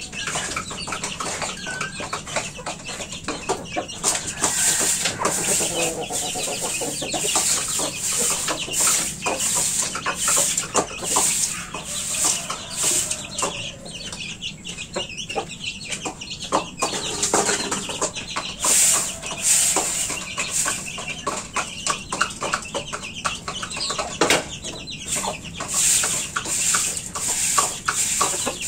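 Chickens clucking in a coop, over a steady run of short scraping strokes at about one or two a second.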